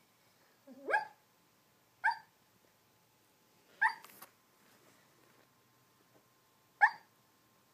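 A dog barking in its sleep while dreaming: four short barks, irregularly spaced one to three seconds apart.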